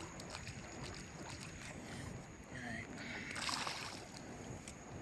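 Seawater moving quietly below a pier, with one short splash at the surface about three and a half seconds in, as a hooked shark thrashes.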